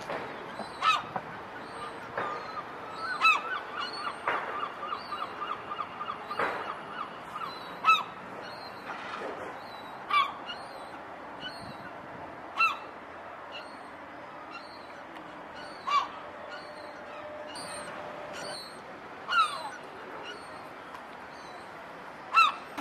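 Herring gulls calling: single sharp yelping calls every two to three seconds, with a quick run of short rapid notes about three seconds in.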